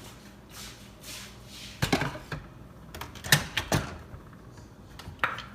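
Knocks and clicks from handling a Keurig K-Mini single-serve coffee maker and a mug: a cluster about two seconds in, three more a little later, and one near the end.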